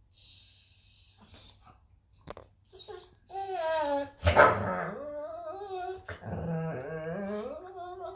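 A dog whining and grumbling in play, with wavering drawn-out vocal sounds and one sharp bark about four seconds in.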